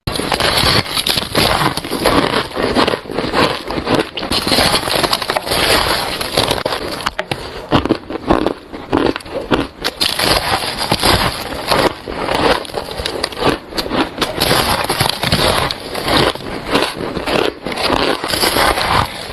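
Close-miked biting and crunching of squeaky white ice: a dense, continuous run of crackling crunches that goes on without pause.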